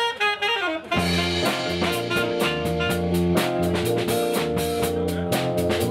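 Background music: a band with guitar and drum kit playing a steady beat, after a quick falling run of notes in the first second.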